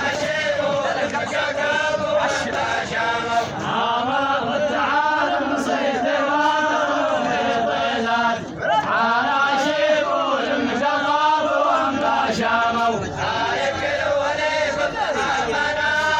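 A group of voices chanting a Bedouin samra folk song together, the singing continuous and steady.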